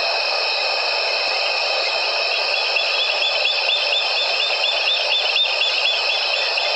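Evening bush chorus of calling insects: a steady, shrill, high-pitched drone in several pitches at once. For a few seconds in the middle, a quick run of short chirps repeats about five times a second over it.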